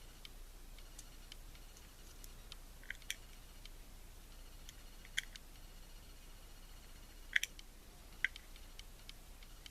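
Scattered small sharp clicks and taps, about eight to ten, as the tiny metal pins of a Corbin Russwin EMHART lock are nudged and turned over, over a faint steady low hum.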